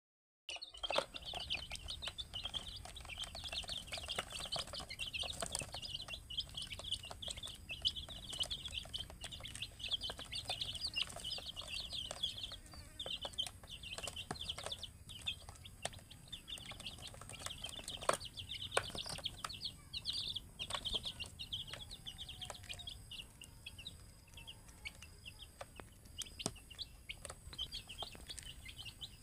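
A group of young domestic chicks peeping: many short, high chirps overlapping without a break, with an occasional sharp tap.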